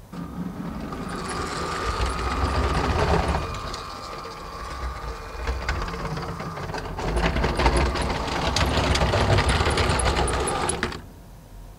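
Lego Powered Up train motors running as the trains travel along plastic track: a steady motor whine with rapid clicking and rattling from the wheels. It eases off for a moment after about three and a half seconds, picks up again, and cuts off suddenly about eleven seconds in when the trains stop.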